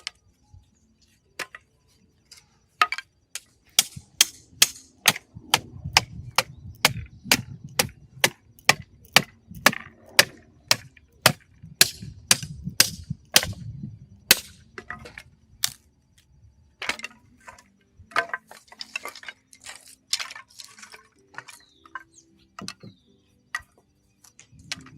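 Wood being chopped: a fast run of sharp chopping strikes, about two to three a second, that thins out to a few scattered knocks about two-thirds of the way in.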